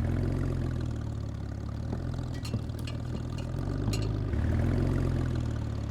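A vehicle engine running steadily, with a few light clicks.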